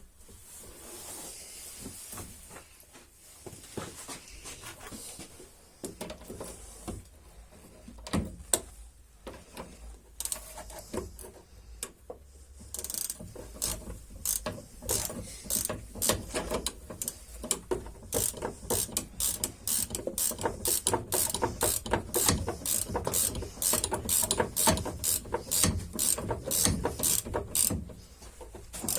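Hand ratchet wrench clicking as the nut on a new anti-roll bar link is run down, a stage before final tightening. The clicks are scattered at first, then come in a quick, steady run over the second half.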